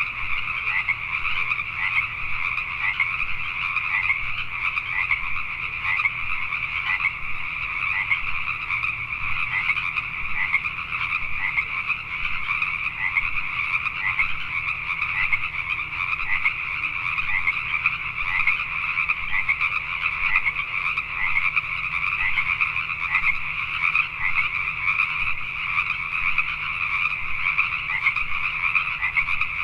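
A chorus of many Pacific tree frogs (Pacific chorus frogs) calling at once, their overlapping croaks merging into a steady, continuous din.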